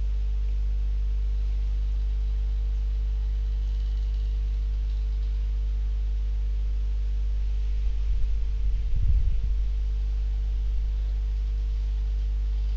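Steady low electrical hum, typical of mains hum picked up by a recording microphone. About eight seconds in there is a brief spell of low rumbling bumps.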